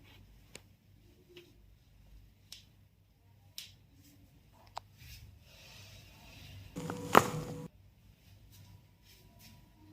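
A chiropractic spinal manipulation on a patient lying on the bench: a second-long rustle of body and bench about seven seconds in, with one sharp, loud crack in its middle. A few faint clicks and taps come earlier.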